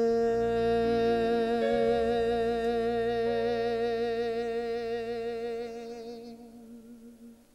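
A male singer holds one long sung note with a wavering vibrato, which slowly fades away over the last couple of seconds.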